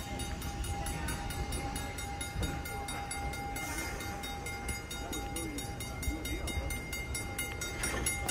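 Railway train running, a steady low rumble with a thin steady tone held above it.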